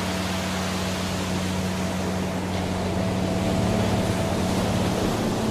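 Waterfall: a steady, unbroken rush of falling water, with a low steady hum underneath.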